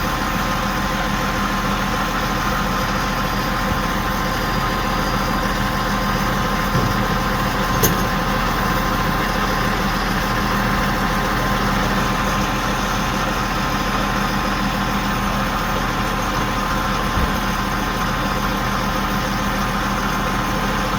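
Large diesel engine idling steadily with an even, unchanging hum, most likely the mobile crane's engine. There is one short click about eight seconds in.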